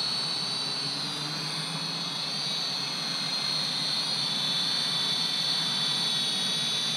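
Helicute H818HW toy quadcopter hovering in altitude hold, its four motors and propellers giving a steady high whine that wavers slightly in pitch.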